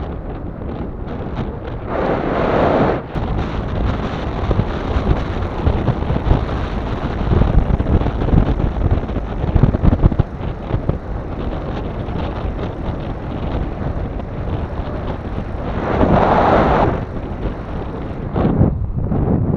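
Strong wind buffeting the microphone in a continuous low rumble, with louder gusts about two seconds in and again about sixteen seconds in.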